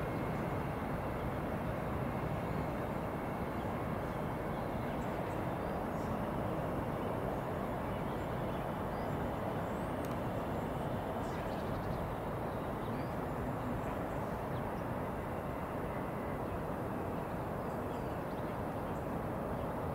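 Class 805 bi-mode multiple unit approaching from a distance: a steady, even rumble that does not change.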